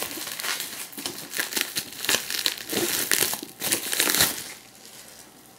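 Bubble wrap crinkling and crackling as it is unwrapped and pulled off by hand, dying down about four and a half seconds in.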